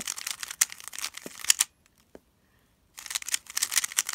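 Plastic stickerless 3x3 speedcube being turned fast through the F-perm algorithm with finger tricks. Rapid clicking and clacking of layer turns for under two seconds, a pause of about a second, then another quick run of turns.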